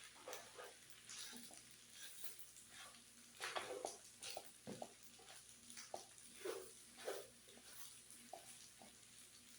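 Utensils knocking and scraping as pasta is stirred on a griddle, with a faint sizzle underneath. The knocks come irregularly and are loudest about three and a half seconds in.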